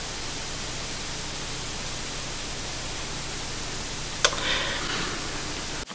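Steady hiss of recording background noise, with a single click about four seconds in followed by a brief soft rustle.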